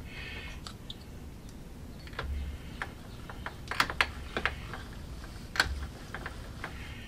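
Light, irregular clicks and taps from a plastic digital caliper readout being handled and pressed into place on its aluminium mounting plate, with a few sharper clicks around the middle.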